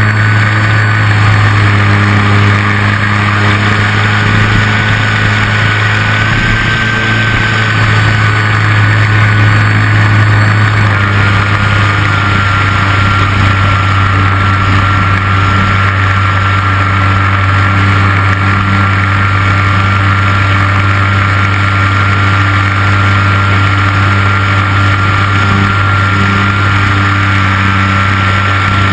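Motor and propeller of a 1400 mm RC L-4 Grasshopper (Piper Cub) model plane running at steady throttle: a low drone with a thin whine above it, both dropping slightly in pitch about eleven seconds in.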